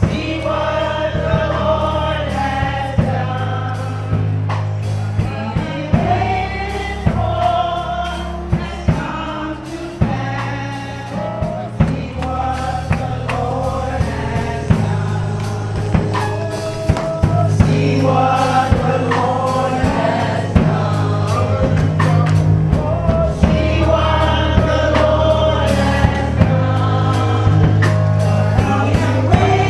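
Gospel choir singing with a band: bass and a drum kit keeping a steady beat.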